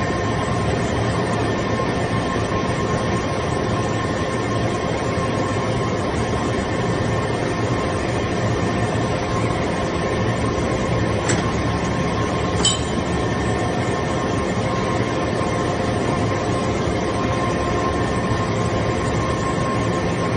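Hydraulic metal-chip briquetting press running: a steady machine drone with a fixed whine. Two short metallic clicks come a little past halfway.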